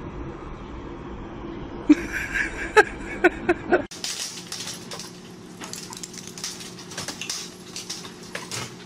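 A small dog yips sharply about five times in quick succession. Then comes a run of light knocks and rattles as a small dog pushes over a wooden baby gate.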